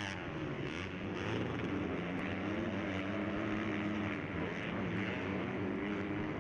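Distant 250cc four-stroke motocross bikes running on the track, a droning engine note that rises and falls slightly with the throttle.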